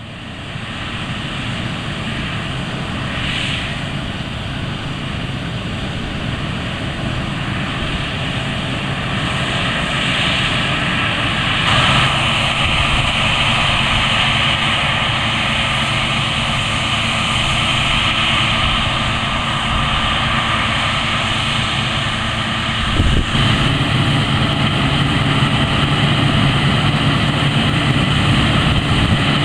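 Claas Lexion 460 combine harvester running under load while cutting and threshing standing grain: a steady engine drone with machinery noise over it. About two-thirds of the way through, the sound shifts and the deep engine note grows stronger.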